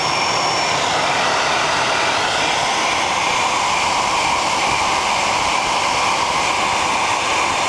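TS-21 gas-turbine starter run as a small turbojet on solvent degreaser as fuel, running steadily: an even jet roar with a faint high whine.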